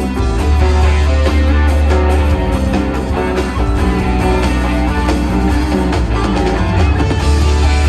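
Rock band playing live: electric guitar over a heavy bass line and drums, loud and steady.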